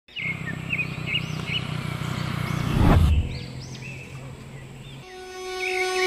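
Birds chirping over a low steady rumble, with a loud falling whoosh about halfway through. Music with sustained tones begins near the end.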